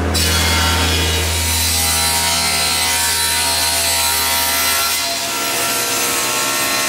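Stationary woodworking machines cutting hardwood: a thickness planer feeding a board, then a table saw ripping a small piece, a dense cutting noise over a low motor hum that fades about five seconds in.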